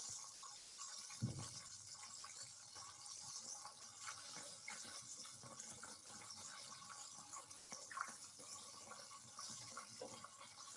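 Buttermilk-coated chicken thighs deep-frying in a pan of hot oil: a faint, steady sizzle with fine crackling.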